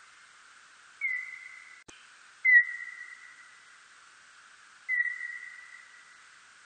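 Calls of a birdlike noctule bat (멧박쥐): three whistle-like tones of one steady pitch, each starting sharply and fading away over about a second, over a steady hiss.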